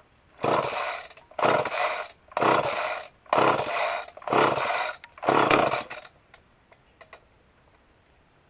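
Homelite XL two-stroke chainsaw being pull-started: five quick yanks of the starter rope, about one a second, each with a whir of the recoil starter, without the engine catching.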